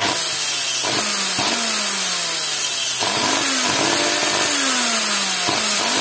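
A failing central vacuum motor, run bare, starts at full speed with a loud steady high whine, its carbon brushes arcing. A lower tone in it keeps sliding down in pitch and jumping back up, and there are several sharp cracks along the way.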